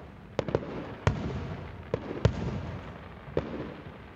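Aerial fireworks bursting: about six sharp bangs in four seconds, irregularly spaced, the loudest just over two seconds in.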